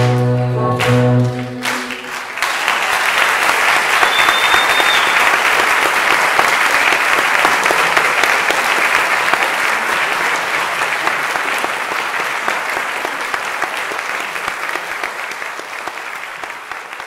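Choir and piano hold a final chord that cuts off about two seconds in. Audience applause follows and carries on, thinning toward the end, with a short high whistle about four seconds in.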